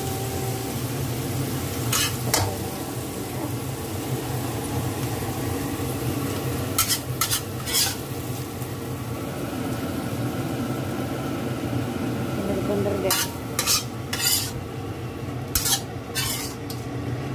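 Metal spatula stirring a stir-fry of mackerel tuna, petai beans and chillies in a wok, with a steady soft sizzle of the food frying. Sharp scrapes and clinks of the spatula against the wok come in clusters a few seconds apart.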